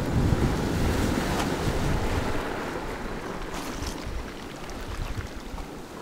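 Sea surf breaking on rocks and washing up over a pebble shore, loudest at the start and easing off, with wind buffeting the microphone. A few faint clicks of pebbles about two thirds of the way in.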